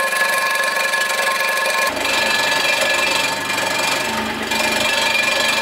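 Bridgeport milling machine running, its cutter taking a shallow pass of a couple thousandths across a transmission bell housing: a steady high whine over dense cutting noise, which changes abruptly about two seconds in.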